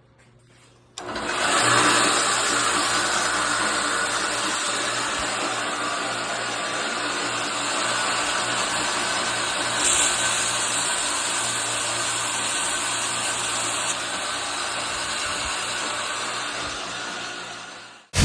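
Homemade 2x72 belt grinder switched on and running: the motor and belt come up to speed within about a second and run steadily with a hum and a broad hiss. For a few seconds from about ten seconds in the hiss grows louder and brighter.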